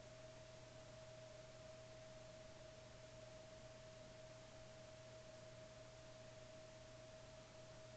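Near silence: faint room tone carrying a steady, unchanging high-pitched whine over a low hum and hiss.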